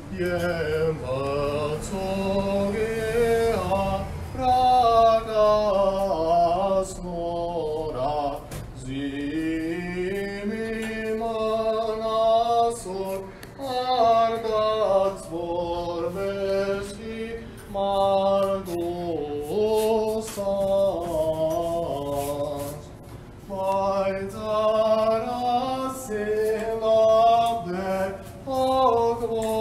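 Unaccompanied male voice chanting an Armenian church hymn, with long held and slowly sliding notes broken by short pauses for breath.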